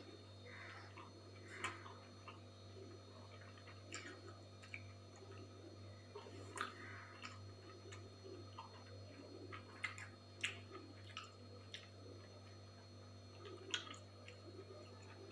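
Quiet eating sounds: irregular light clicks and taps, like fingers and food against a plate, with soft mouth sounds in between, over a low steady hum.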